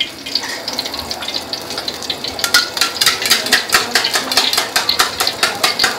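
A little cooking oil sizzling in a hot steel wok, with a run of quick crackling ticks, about four or five a second, from about two and a half seconds in.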